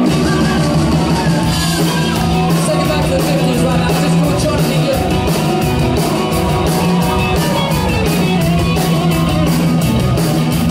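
A live rock and roll band plays loudly, with electric guitars, bass and a drum kit keeping a steady, driving beat.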